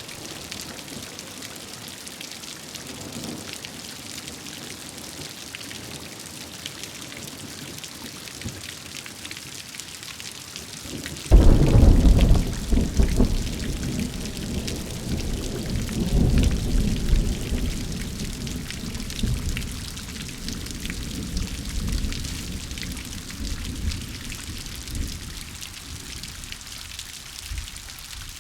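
Steady rain hiss with a sudden loud thunderclap about eleven seconds in. The clap rolls on as a long low rumble of thunder that slowly fades.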